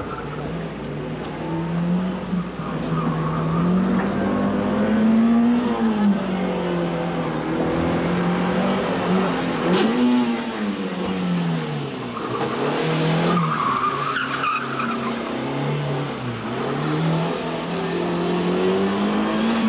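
A Toyota Starlet hatchback's small four-cylinder engine is driven hard through a gymkhana cone course, its note climbing and dropping again and again as the throttle goes on and off. About two-thirds of the way through, the tyres squeal through a tight turn.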